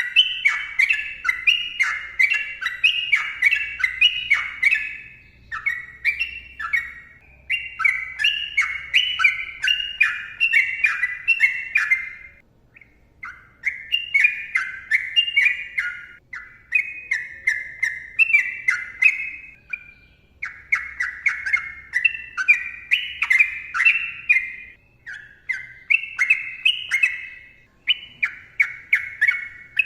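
Yellow-vented bulbul singing in long rapid runs of quick notes, with a short break near the middle.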